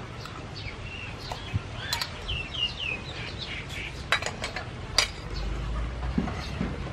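Birds chirping in short, quick calls, with a few sharp clinks of metal kitchenware: a spoon on a steel bowl and a cleaver on a wooden board.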